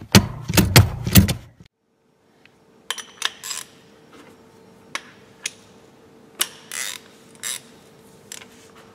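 Car brake pedal pumped by foot for brake bleeding: about five quick knocks and clacks in the first second and a half. These stop suddenly and give way to a faint steady hum with scattered clicks and short swishes.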